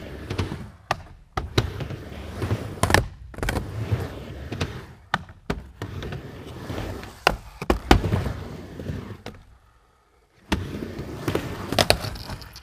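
Skateboard wheels rolling across a miniramp, with repeated sharp clacks and thuds of the board striking the ramp surface and its metal coping.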